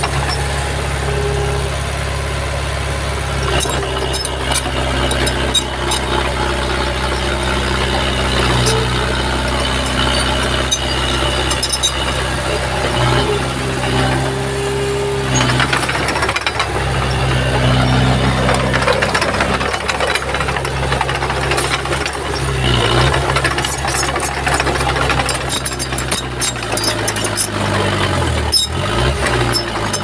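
Small crawler bulldozer's diesel engine running steadily under working load, with scattered clanks and rattles; the engine note drops near the end.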